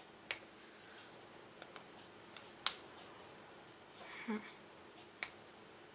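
Victorinox SwissChamp Swiss Army knife tools clicking as they are folded and unfolded: about six sharp metal clicks, the loudest a little under three seconds in.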